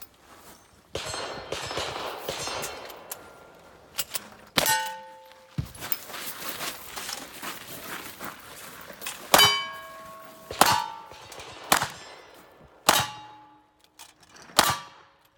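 Gunshots at steel targets, each hit followed by the ringing clang of the steel plate. There are a few strikes about 4 to 5 seconds in, then a steady run of about five, roughly a second apart, in the second half.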